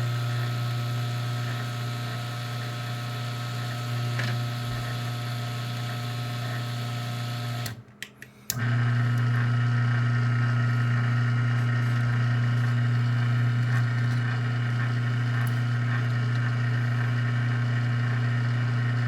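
Garage door opener motor running with a steady hum, driven by a freshly repaired logic board. It stops for about a second near the middle, then runs again, as the opener completes one direction of travel and starts the other.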